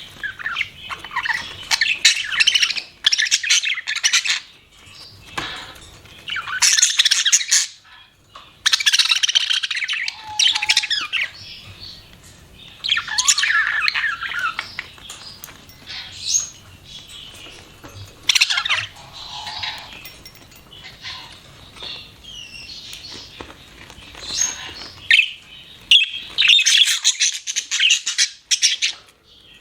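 Budgerigars chirping and chattering: bursts of rapid, high-pitched warbling and squawky calls, each a second or two long, with short lulls between them.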